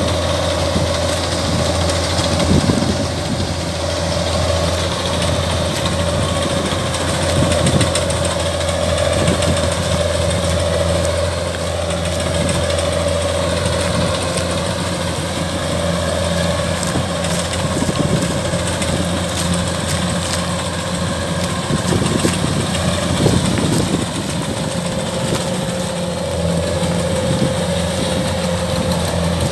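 Kubota combine harvester's diesel engine and threshing machinery running steadily under load while cutting rice: a constant drone with a steady higher hum over it.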